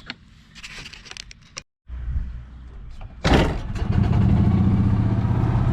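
A few light knocks, then a gas golf cart engine starts with a sudden burst a little past halfway and settles into steady running.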